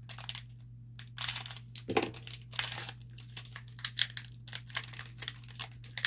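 Plastic and foil hockey-card packaging being crinkled and torn open by hand in irregular crackling bursts, over a steady low hum.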